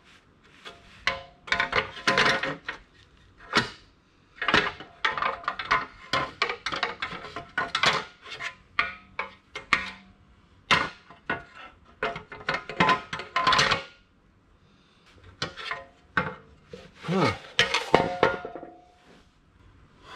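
A metal motorcycle skid plate clanking, clinking and scraping against the bike's frame and engine as it is held up and shifted into place for fitting. The knocks come in irregular clusters with brief metallic ringing, and there are short pauses about four seconds in and again around fourteen seconds.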